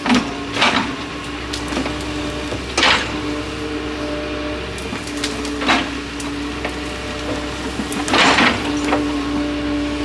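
Excavator at work: a low steady engine hum with held whining tones that switch on and off, and several short noisy bursts, about five in all, as the machine moves.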